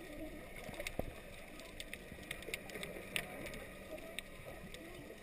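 Muffled underwater noise picked up by a camera held underwater: a steady low wash with scattered faint clicks and crackles.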